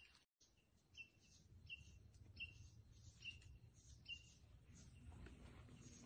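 Faint bird chirping, a short call repeated about once every three-quarters of a second, pausing for about two seconds near the end, over a low rumble of wind or outdoor background.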